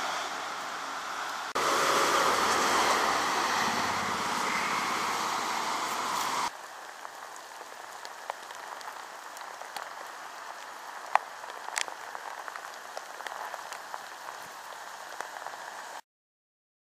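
Rain pouring onto wet ground and pavement. It is loud for the first several seconds, then settles to a softer steady patter with scattered sharp drips, and cuts off to silence near the end.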